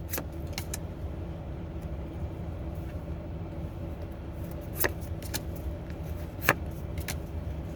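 Several short clicks and ticks of trading cards being handled and flicked, over a steady low hum.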